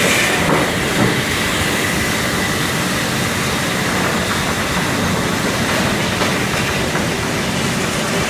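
Helle circle sawmill running, with a steady mechanical clatter and rumble from the saw and log carriage at work on a large Douglas fir log. There is a light knock about a second in.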